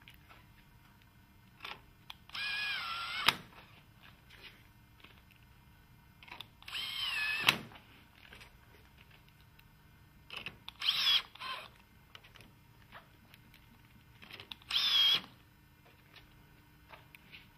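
Cordless drill-driver screwing window fittings to a PVC sash: four short runs of motor whine, each under about a second, the pitch rising and sagging as the screw drives in. The first two runs end in a sharp click as the screw seats.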